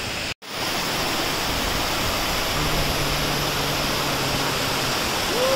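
Running monsoon water rushing steadily, a waterfall-like roar of gushing water. It cuts out for a moment about half a second in, and a faint low hum sits under it for a couple of seconds midway.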